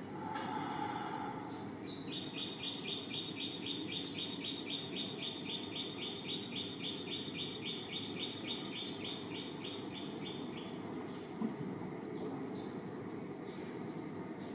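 Insects chirping: a steady high buzz, with a rhythmic chirping of about four pulses a second that starts about two seconds in and stops after about eight seconds.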